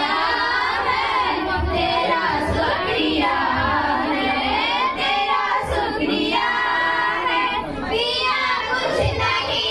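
Teenage schoolgirls singing a song into handheld microphones, the voices carrying on without a break.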